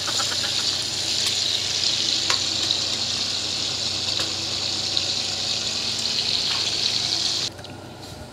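Pork pieces sizzling steadily as they fry in oil in a pot, with a few faint clicks; the sizzle cuts off suddenly near the end.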